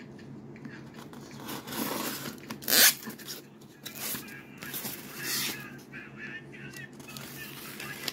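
Pocketknife blade sawing through a block of styrofoam packing, giving irregular squeaky scraping strokes. The sharpest stroke comes about three seconds in, with others around two and five seconds.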